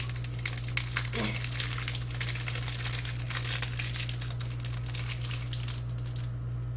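Plastic wrapper of a Black Thunder chocolate bar crinkling as it is opened and handled, with dense crackling that dies away about six seconds in.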